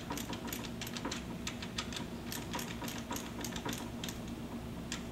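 Hand ratchet clicking in quick runs of short, sharp ticks as it tightens the nuts of a copper cable ground kit.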